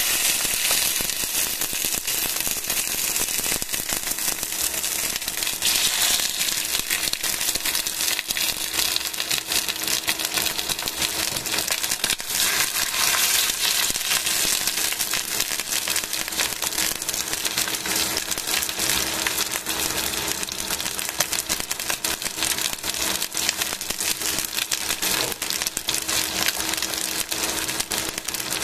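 Raw chicken pieces frying in hot oil in a stainless steel pan: a steady sizzle thick with fine crackles and pops of spitting oil.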